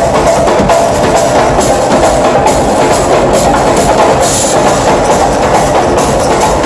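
Live drum ensemble playing a loud, steady, fast groove together on timbales, tom-toms, cymbals and a hand drum.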